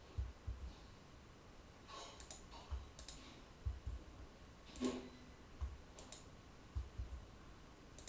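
Faint, irregular clicks of a computer mouse and keyboard keys, a few scattered strokes each second with soft low thuds among them, as vertices are selected one after another and a key shortcut is repeated.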